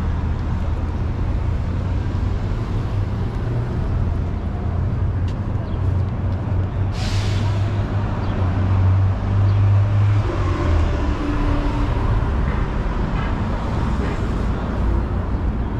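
City street traffic with a heavy vehicle's engine rumbling low and steady, and a short hiss of air brakes about seven seconds in. The engine rumble fades about ten seconds in.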